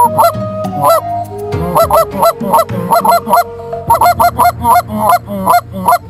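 Canada geese honking: a rapid run of short calls, two or three a second and often overlapping, that quickens after the first second.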